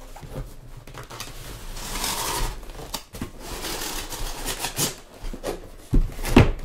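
Cardboard packaging scraping and rubbing as a boxed keyboard is slid out of its outer box, louder about two seconds in, with a few knocks near the end.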